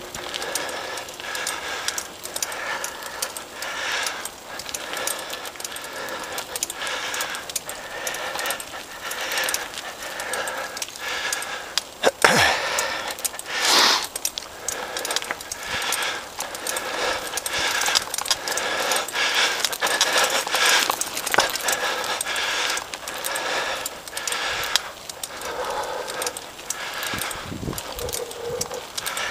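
Mountain bike rattling and clattering over a rocky dirt trail, with many small knocks from the bike as it bounces. There is a sharp, louder knock about twelve seconds in, followed closely by a louder burst of noise.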